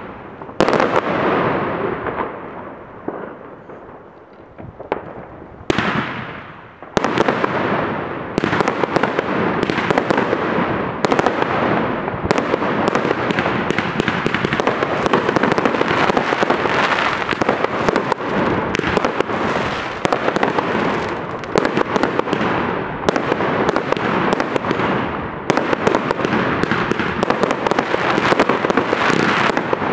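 Aerial fireworks bursting in the sky. The first few seconds hold a few separate bangs, each with an echoing tail. From about eight seconds in they become a dense, continuous barrage of bangs and crackling.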